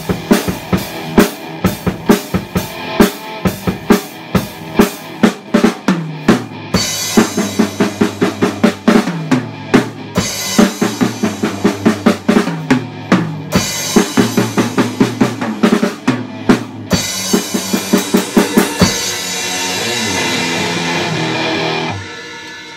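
Music with a steady drum-kit beat, bass drum and snare over pitched instruments; the beat stops about 19 seconds in, a held chord rings on and falls away near the end.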